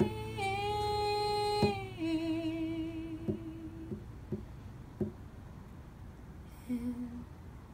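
A woman's voice holding a long sung note, then a lower, softer hummed note, over a few sparse strums of an acoustic guitar. The playing thins out and gets quieter toward the end.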